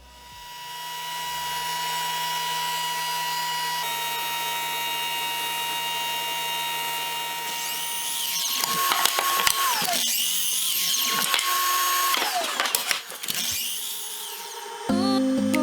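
Electric power tool running with a steady whine, then working into wood from about eight seconds in, its pitch sagging twice under load before recovering.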